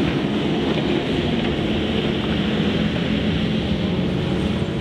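Diesel engine of a wheel loader running steadily under load, a constant low hum over machine noise.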